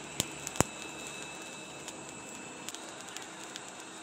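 Blacksmith's coal forge fire burning under a blown air draft: a steady rushing hiss with a faint whine, and the coals crackling and popping, with two sharp pops in the first second.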